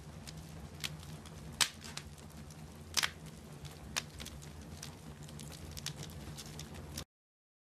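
Log fire crackling, with several sharp pops of burning wood over a low steady rumble; the sound cuts off abruptly near the end.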